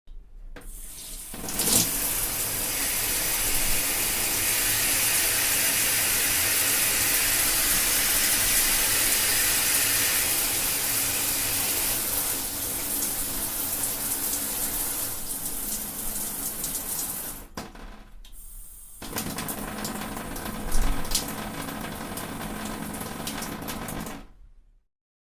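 Shower running: a steady spray of water, beginning with a sharp knock. It drops away briefly about three-quarters of the way through, resumes with another knock, and cuts off abruptly near the end.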